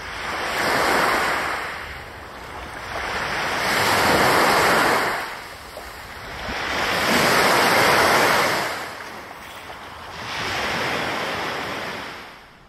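Small lake waves washing up onto a sand and pebble beach, four surges about three and a half seconds apart, each swelling and falling away.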